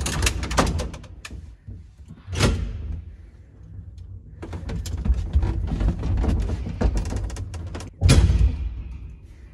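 Manual folding inner doors of a small lift cabin being worked by their metal handle, with clicks and rattles over a low rumble, a heavy thump about two and a half seconds in and the loudest bang about eight seconds in.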